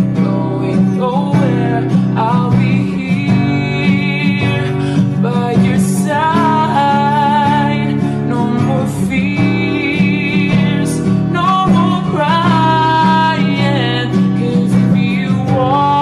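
Background music: a slow pop ballad with guitar and a singing voice carrying a wavering melody.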